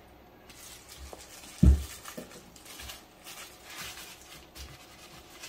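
Plastic-gloved hands rubbing oil into a cypress-wood bread board, making faint swishing and rustling sounds with a few soft knocks. A single dull thump comes about a second and a half in.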